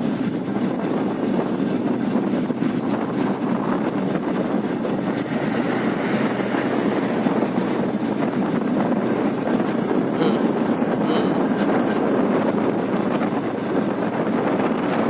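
A vehicle driving on a highway: steady road and wind noise.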